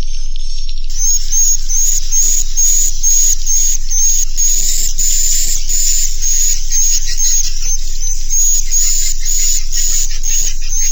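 Recorded swiftlet roosting call: a fast, even train of high, rasping chirps, about two or three a second. It is the kind of call played in swiftlet houses to get the birds to settle and roost overnight.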